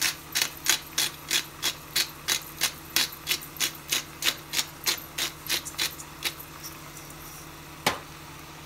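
A black pepper grinder being twisted over the pot, its mill clicking about three times a second and fading out after about six seconds. A single sharp knock follows near the end.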